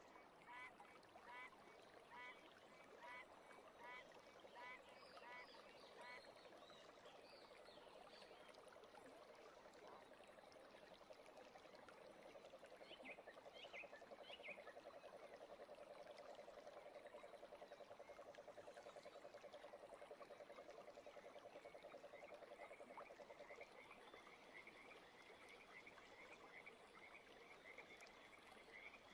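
Faint repeated animal calls: short chirps about twice a second at first, then a long pulsing trill in the middle, and rapid faint chirping near the end.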